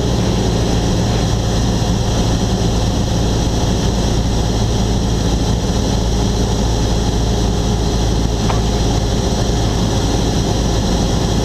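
Cessna 172SP's Lycoming IO-360 four-cylinder engine and propeller droning steadily in flight, a low even hum.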